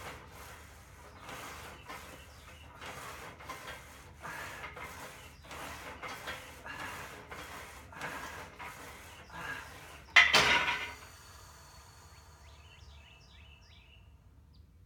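Smith machine bar sliding up and down its guide rods during quick bench-press reps: a rasping rub about two to three times a second. About ten seconds in comes one loud metal clank that rings on briefly.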